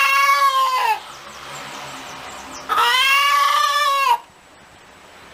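A chicken giving two long, drawn-out calls, each rising slightly and falling away at the end; the first fades out about a second in and the second starts near the middle.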